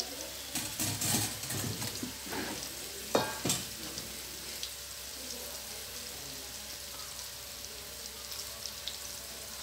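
Wonton-wrapped dumplings deep-frying in hot oil in a steel wok, a steady sizzle. A few knocks and one ringing clank in the first few seconds.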